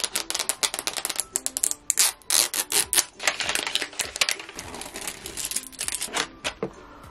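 Long fingernails tapping and scratching on the hard plastic of a Magic Mixies cauldron toy, a quick, uneven run of sharp clicks.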